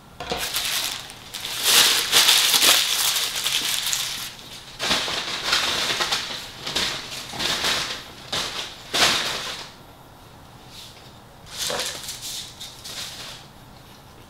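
A McDonald's paper food wrapper being crumpled and scrunched up by hand, in an irregular run of loud crinkling rustles for about ten seconds, then a shorter rustle near the end.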